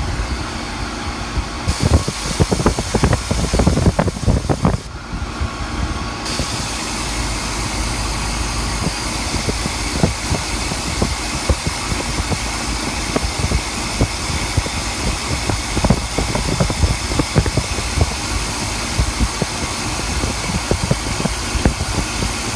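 HVAC system running with a noise at startup: a burst of irregular knocking and rattling about two seconds in, lasting about three seconds, then a steady rush with scattered ticks.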